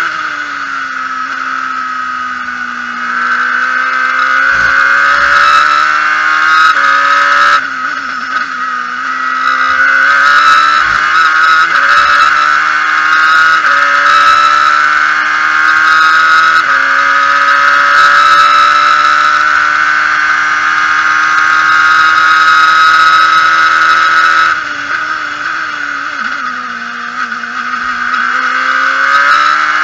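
Radical SR8's V8 engine heard from the cockpit at high revs under full throttle. Its pitch climbs and steps down abruptly at several gear changes. Near the end the driver lifts off and downshifts, the engine note drops and quietens, then it picks up again as the throttle reopens.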